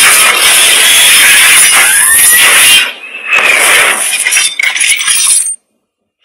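Sound effects of an animated intro: a loud, dense rush of noise with a couple of swooping tones, then a run of shorter hits, cutting off abruptly about half a second before the end.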